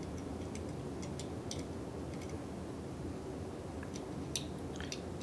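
Faint, scattered light clicks of small screws and metal parts being handled as a thermal unit is fitted into a manual motor starter, over low room tone.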